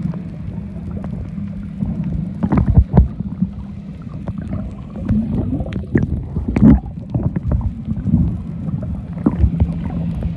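Muffled underwater ambience recorded over a coral reef: a low steady hum and rumble with irregular dull thuds and gurgles, the loudest about two and a half and six and a half seconds in.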